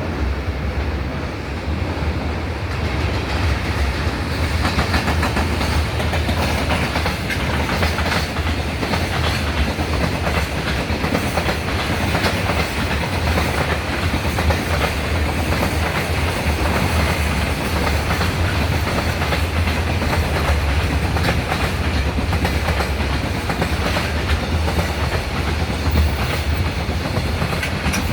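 Freight train hauled by a JR Freight EF210 electric locomotive passing steadily: a continuous heavy rumble of the wagons with repeated clicking of wheels over the rail joints.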